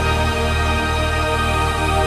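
Background music with steady held chords over a low bass.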